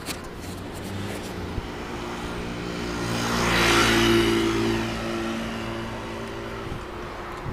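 A motor vehicle passes close by with a steady engine hum, its engine and tyre noise swelling to a peak about four seconds in and then fading.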